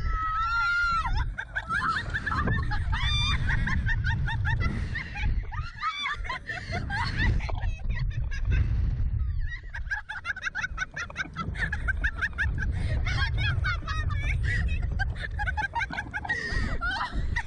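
Two women screaming and shrieking with laughter in a long run of short high-pitched cries, over a heavy rumble of wind on the microphone as the slingshot ride flings them through the air.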